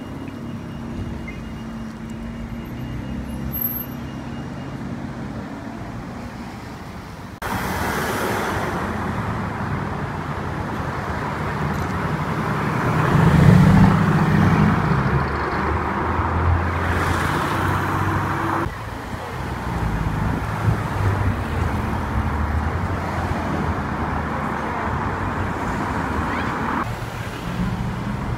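Supercar engines running as the cars pull away and drive past along a street, in several short clips that change abruptly. The loudest moment, about halfway through, is a Mercedes-AMG GT's engine swelling and fading as it pulls away.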